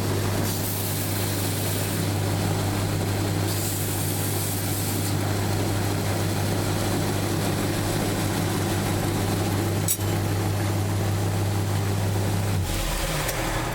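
KMG-style belt grinder running with a steady motor hum and belt hiss. The high hiss brightens twice in the first five seconds, a short click comes near the ten-second mark, and the hum drops away and changes near the end.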